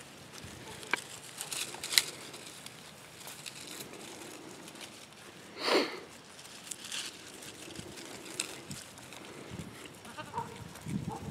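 Spanish goats browsing on a cut cedar tree: scattered snaps and rustles of twigs and branches, with one short goat bleat about halfway through.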